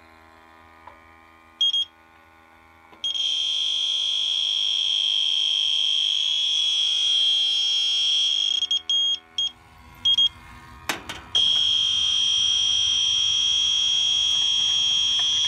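Electronic refrigerant leak detector alarming with a high-pitched steady tone: a single beep, a long tone, a few quick beeps, then a continuous tone again from about 11 s in. It is picking up refrigerant near the heat pump's service valves, which the technician puts down to residual refrigerant from charging rather than a leak.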